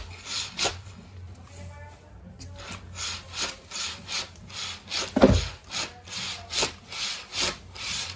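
Tulle curtain being pulled down from a ceiling curtain track: short rasping and rubbing strokes, about two a second, as the runners slide along the rail and the sheer fabric rustles. There is a heavier thump about five seconds in.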